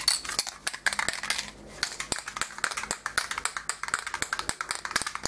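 Aerosol spray can being shaken between bursts, the mixing ball inside rattling in quick, irregular clicks.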